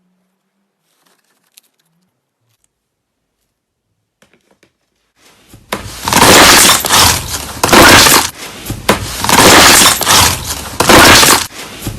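Slime being squeezed and pressed, loud crackling and crunching that comes in after about five seconds of near silence and repeats in bursts about a second long.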